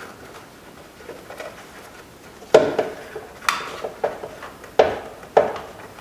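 Saturn Ion inside door handle clicking and knocking against its metal linkage rods as it is twisted to force the rods out: a handful of sharp clicks, starting about halfway through.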